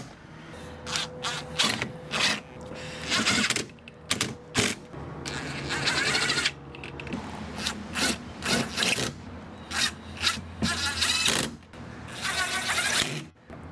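Cordless DeWalt impact driver with a long extension bit driving screws into a boat's carpeted side rail, running in repeated short bursts with brief pauses between them.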